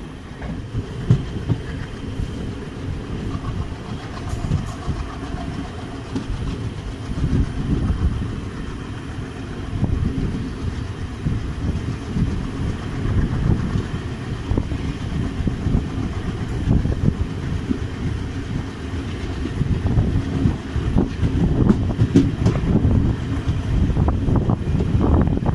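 Passenger train running on the line, heard from inside a coach: a steady low rumble of wheels on rail, growing a little louder in the second half.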